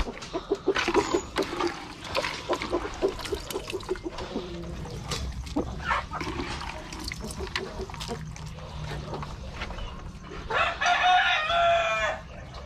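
Rhode Island Red chickens clucking while they feed, with many short clicks. About ten and a half seconds in, a rooster crows once; the crow is the loudest sound.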